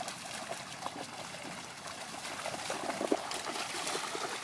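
Muddy water splashing and trickling as dogs wade and run through puddles.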